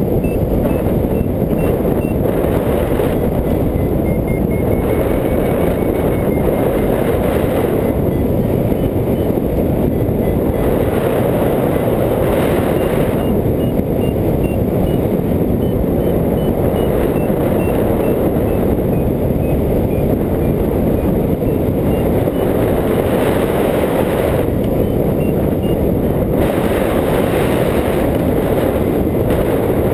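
Steady rushing wind noise on the microphone of a hang glider in flight, with a variometer's faint short beeps recurring in runs and changing pitch, the signal of climbing air.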